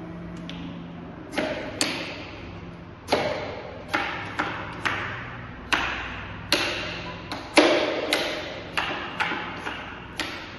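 Beads of a large wooden abacus being pushed along the rods by hand, clacking against the frame and bar. There are about fifteen sharp clacks at uneven intervals, starting a second or so in.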